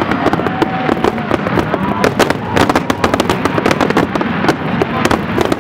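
Fireworks going off in quick succession: a dense, unbroken run of bangs and crackling pops with no pause.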